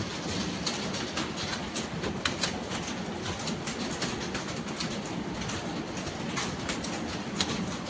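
Computer keyboard typing: a dense, fast, irregular clatter of key clicks with sharper individual keystrokes standing out.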